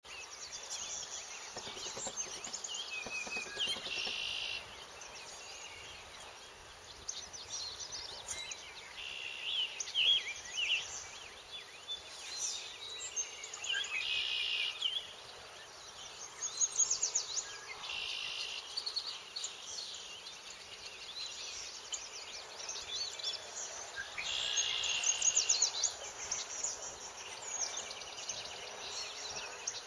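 Morning chorus of many bird species singing at once, overlapping chirps and trills over a steady outdoor hiss. One louder song phrase stands out and repeats every few seconds.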